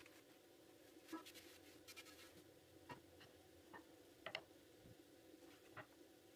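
Faint scratchy rustling and a few scattered light clicks as a thin sheet of yufka dough is flipped and pressed flat by hand in a dry non-stick frying pan, over a low steady hum.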